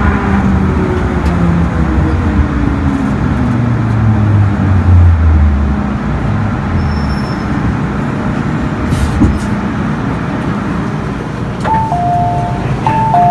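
MTR M-Train's traction motors whining under braking, the stack of tones sliding steadily down in pitch and dying away after about six seconds, over a steady rumble of the train. Near the end an electronic two-note chime, high then lower, sounds twice.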